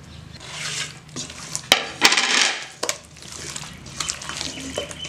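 Raw seer fish pieces being mixed by hand into wet spice paste in a stainless steel bowl: two stretches of wet rubbing and stirring noise, with a few sharp clinks against the steel bowl.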